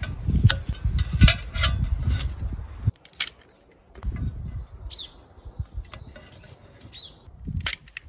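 A low rumble with sharp handling clicks for about three seconds, then it drops off suddenly. After that it is quieter, with a bird chirping a quick run of rising and falling notes and a couple of sharp clicks from hands working with a stainless steel tray and tape.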